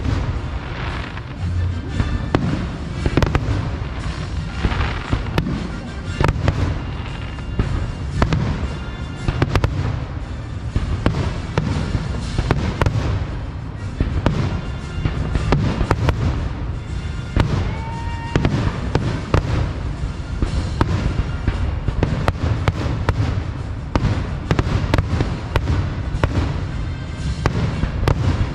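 Fireworks display: shells bursting in quick, overlapping succession, many sharp bangs a second over a continuous rumble.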